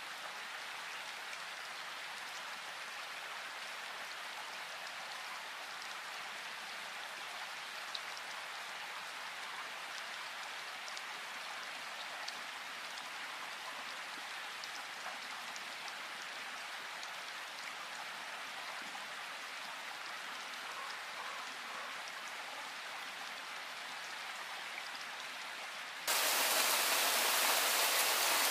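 Steady rain falling, an even hiss with an occasional single drop tick. About 26 seconds in it cuts suddenly to a louder, brighter downpour.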